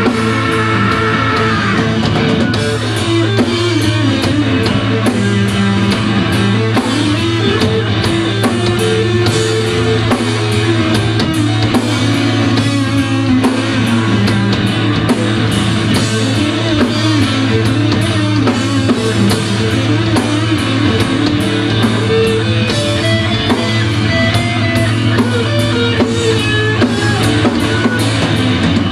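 Live rock band playing an instrumental passage with no singing: strummed acoustic guitar, electric guitar and drum kit over a steady low note.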